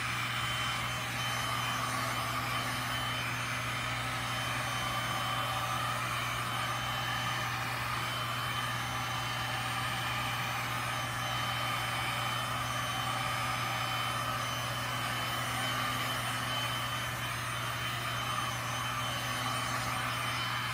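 Electric heat gun running steadily, its fan blowing hot air over wet resin on a canvas, a constant hum with a thin high whine.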